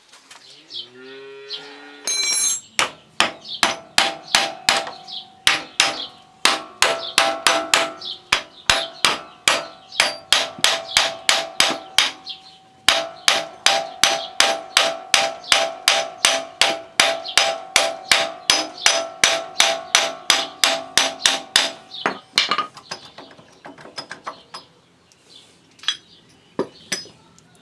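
Hammer blows on metal, struck steadily about three times a second, each with a short metallic ring. They pause briefly midway, stop a few seconds before the end, and give way to a few scattered knocks.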